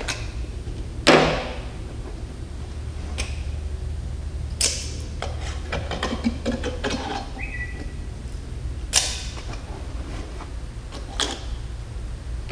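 Large plastic oil jug being opened and handled: a handful of sharp plastic clicks and knocks, the loudest about a second in, over a steady low hum.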